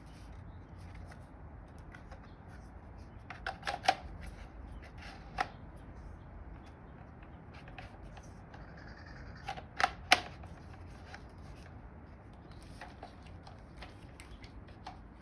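Pressure washer parts being handled and fitted, giving scattered sharp clicks and knocks: a cluster about four seconds in, a single one soon after, and a close pair near ten seconds, with lighter ticks between.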